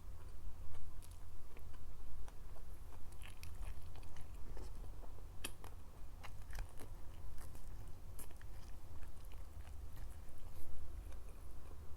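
Close-miked eating: biting and chewing, with many short crunches and wet clicks scattered through, over a steady low hum.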